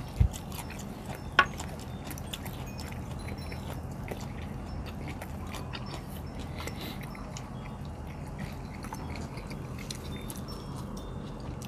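People eating with their fingers: chewing, with small clicks of food and fingers against plates, over a low steady hum. A low thump comes just after the start and a sharper click about a second and a half in.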